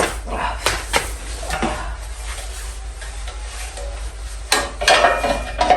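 Clinks, knocks and clatter of small metal parts and tools being handled, busiest about three quarters of the way through, over a steady low hum.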